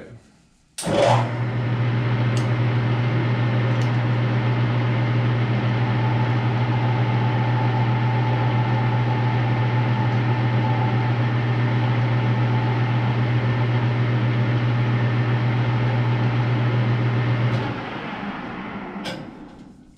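Metal lathe switched on in high gear: its motor and spindle gearing start suddenly and run at a steady, loud hum. Near the end the lathe is switched off and winds down.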